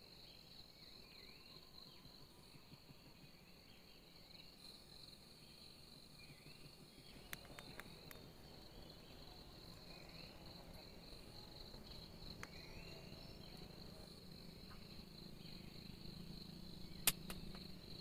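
Night insects shrilling steadily at a high pitch, with short chirping calls scattered through. A few sharp clicks come about halfway through, and a louder single click comes near the end.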